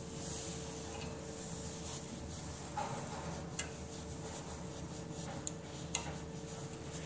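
Hands handling and fitting the spin bike's display holder and its nut: soft rubbing with a few sharp small clicks, over a steady low hum.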